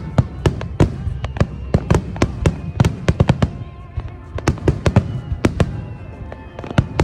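Fireworks shells bursting in a dense finale barrage: sharp reports several times a second, thinning out a little past the middle before picking up again near the end.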